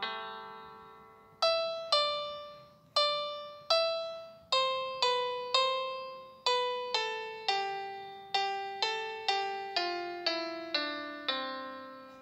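Background music: a slow melody played one note at a time on a piano or electric piano, each note struck and left to die away, with a long held note at the start.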